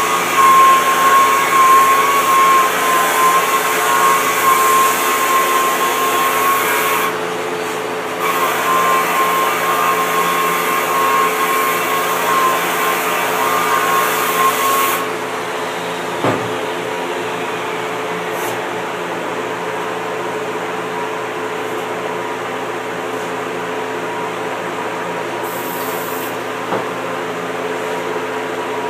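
Handheld electric rotary sander-polisher with a foam backing pad sanding the resin-and-fibreglass surface of a surfboard: a steady high motor whine over a sanding hiss. It drops out for about a second a quarter of the way in and stops about halfway, leaving a quieter steady hum.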